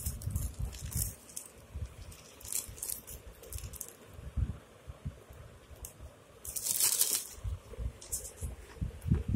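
Plastic mailer, a small cardboard box and paper being handled and opened, with scattered crinkling and rustling and light knocks, and a loud paper rustle about seven seconds in as a leaflet is pulled from the box.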